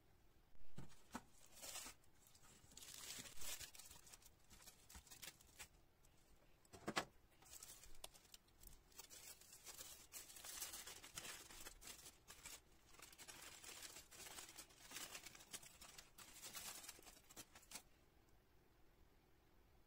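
Aluminium foil crinkling and rustling in irregular bursts as hands fold it back and peel it away from a baked chocolate sponge cake layer, with one sharp knock about seven seconds in.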